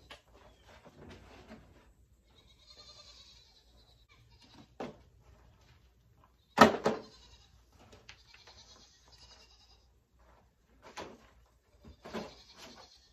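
Hollow plastic clatter and knocks of black nursery trays and pots being handled and set down, the loudest clatter about six and a half seconds in. An animal calls now and then in the background.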